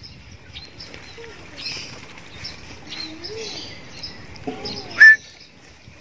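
Birds chirping: short, high chirps scattered throughout, with one loud, sharp call about five seconds in.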